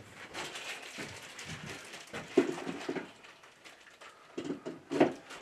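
Handling noise: plastic packaging rustling and plastic parts knocking as a plastic bypass valve is picked up and fitted onto a water filter's control valve, with a few louder clunks in the second half.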